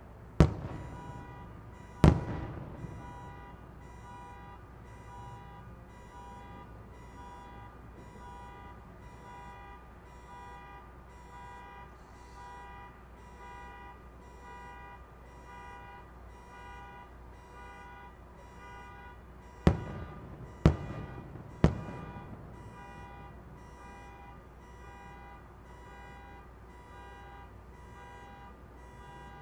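Fireworks shells bursting in the distance: two sharp bangs near the start and three more about a second apart later on. Under them, a steady electronic beep repeats a little more than once a second throughout.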